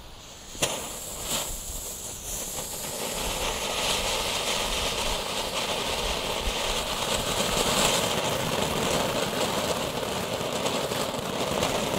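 Firework cone fountain (ground volcano) spraying sparks with a steady, loud rushing hiss that builds up about two seconds in. A couple of sharp clicks come just before it.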